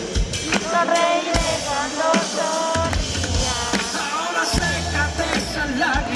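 A live pop band plays an instrumental passage between sung lines. The drum kit keeps the beat under pitched guitar and keyboard lines.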